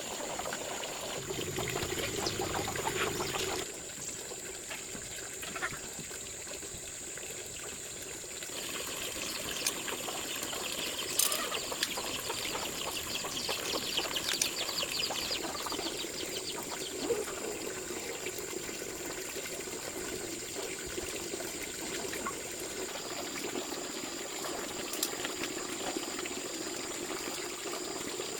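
Water trickling and splashing, over a steady thin high-pitched tone, with a few light knocks and clicks.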